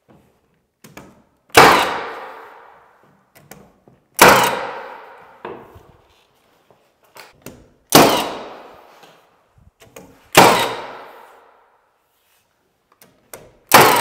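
Cordless finish nailer driving nails through wood casing into the wall: five sharp shots a few seconds apart, each with a short ringing decay and a fainter click just before it.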